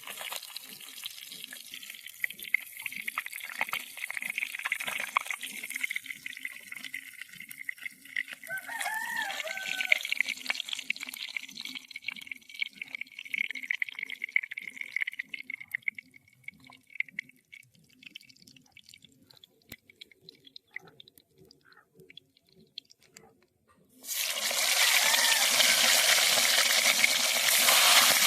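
Cooking oil sizzling in a pan after fish frying, with a light hiss and scattered clicks. About 24 s in, a much louder, steady sizzle starts suddenly, as when fresh food is dropped into the hot oil.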